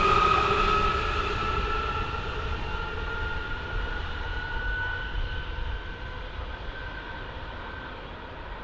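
Train moving away and fading, a whine in its sound slowly rising in pitch.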